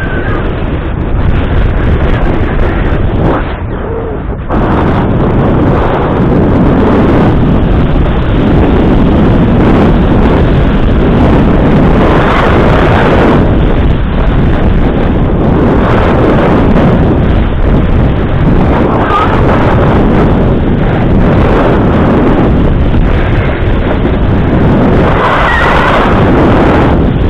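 Loud rushing wind buffeting the camera's microphone, a steady roar of noise with a brief dip a few seconds in.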